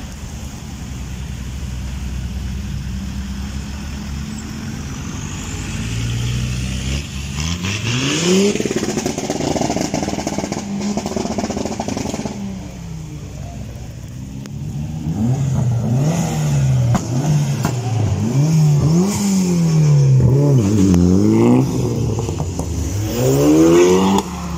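Car engines revving as cars drive off one after another: a rising rev about eight seconds in, then a run of quick revs rising and falling from about fifteen seconds on, and another rising rev near the end.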